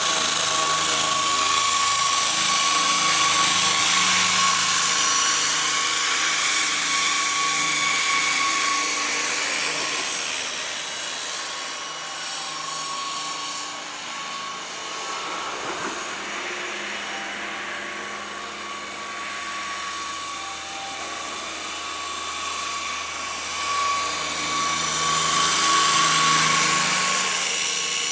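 Electric 700-size RC scale helicopter (Blue Thunder replica) flying: a steady high-pitched motor whine over the whoosh of the rotor blades. It grows fainter for several seconds around the middle as the model flies off, then louder again near the end as it comes back close.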